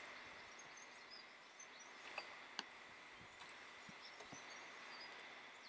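Near silence: faint steady background hiss, with a couple of small clicks about two and a half seconds in.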